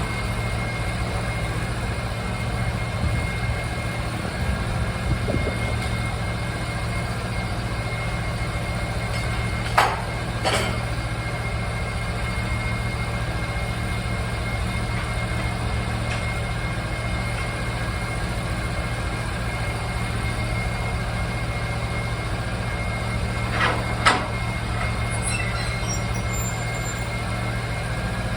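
Timberking 1400 band sawmill running steadily with an even engine drone, broken by a couple of short sharp clacks about ten seconds in and again near twenty-four seconds.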